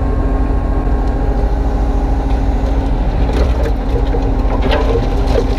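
Kubota U35-3 mini excavator's diesel engine running steadily, with a few short knocks and scrapes from about three seconds in.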